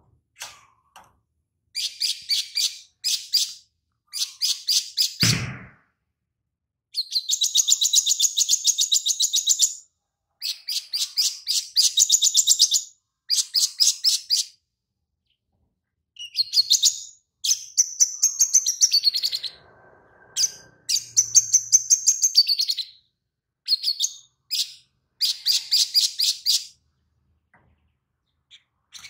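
Caged male sunbird (sogon) singing fast runs of high chirping notes in phrases of one to three seconds, with short pauses between. The song is filled with notes copied from a lovebird.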